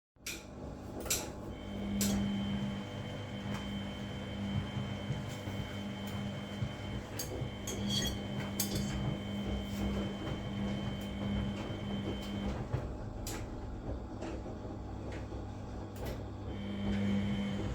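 Front-loading washing machines running a wash cycle. A steady motor hum and drum noise stop for a few seconds and then start again, as the drum turns in bursts. Scattered light clicks and knocks come through the hum.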